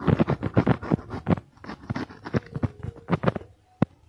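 Dry soil and small roots crackling, crumbling and scraping as a stump's roots are pulled and worked loose by gloved hands, in quick irregular clicks that thin out, with one sharp snap near the end.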